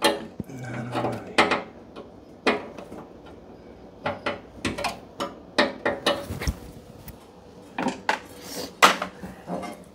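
Hand tools and screws clinking and knocking on metal, the steel wood-stove top and the blower motor's bracket, as a series of scattered, irregular clanks with a sharper clank near the end.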